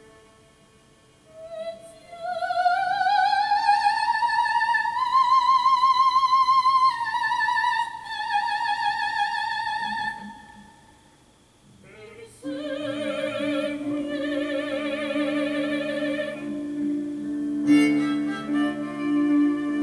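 Classical music with a high operatic voice holding long notes with wide vibrato, the first phrase slowly rising in pitch. After a short pause about halfway through, a second phrase comes in over low sustained strings.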